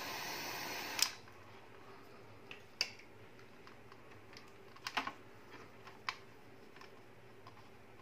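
Dremel Versa Flame butane torch hissing steadily while shrinking heat-shrink tubing, cut off with a sharp click about a second in. After that, a few scattered light clicks and taps as the wires and connectors are handled.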